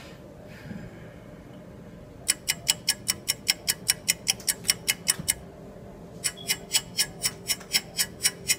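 Rapid, even clock-like ticking, about seven ticks a second, starting about two seconds in, breaking off briefly around the middle and then starting again.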